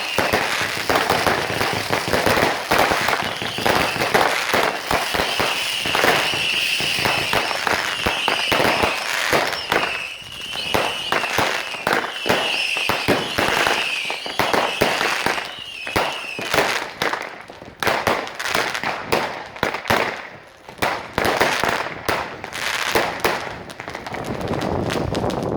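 Firecrackers and fireworks going off in a dense, rapid string of bangs and crackling, with short whistles repeating about once a second from around five seconds in until about sixteen seconds. After that the bangs thin out to scattered reports with short gaps.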